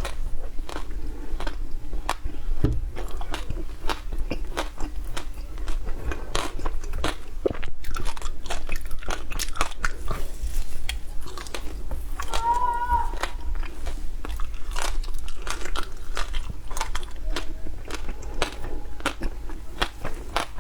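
Close-up crunching and chewing of shaved ice: a dense, irregular run of sharp crunches and cracks as the ice is bitten and ground between the teeth. A short squeaky tone sounds about two-thirds of the way through.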